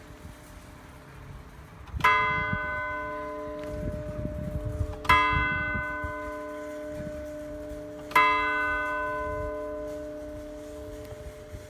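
Church bell tolling: three strokes about three seconds apart, each ringing out and fading slowly, with the bell's low hum note sounding on between strokes.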